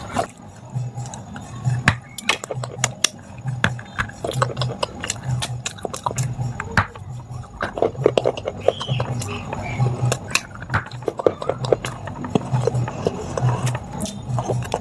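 Crisp, irregular crunching and cracking of brittle baked clay being bitten and chewed close to the microphone, over a faint low beat that repeats about twice a second.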